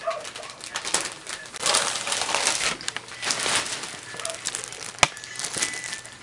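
Plastic wrapping on a present crinkling and rustling as a baby's hands pull at it, with a sharp click about five seconds in and a couple of soft baby coos.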